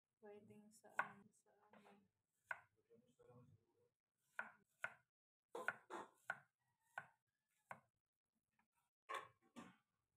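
Chef's knife slicing a peeled daikon radish into rounds on a wooden cutting board: about a dozen light knocks of the blade meeting the board, at an uneven pace with short pauses.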